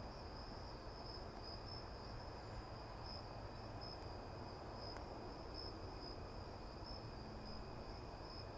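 Crickets chirping in a steady, high, faintly pulsing trill over a low background hum.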